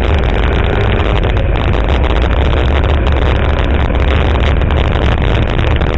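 Ford Mustang GT's V8 engine running steadily as the car moves down the track, heard from inside the cabin as a low drone mixed with road and wind noise.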